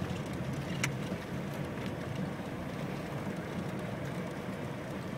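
Vehicle engine and tyre noise heard from inside the cabin while driving along a rough dirt road: a steady low hum, with one short click about a second in.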